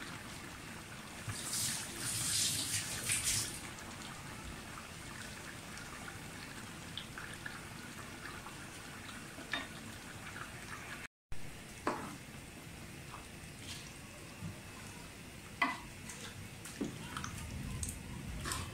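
Chicken cooking in a large metal pot with yogurt and spice mix, a steady soft wet sizzle, with a louder burst of hissing about two seconds in. Later come a few sharp clacks of a wooden spoon against the pot as stirring begins.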